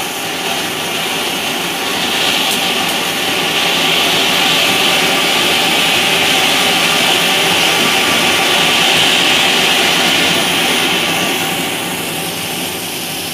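Large flowerpot (anar) fountain firework burning on the ground, giving a steady, loud hissing rush of sparks. It grows louder about two seconds in and eases off slightly near the end.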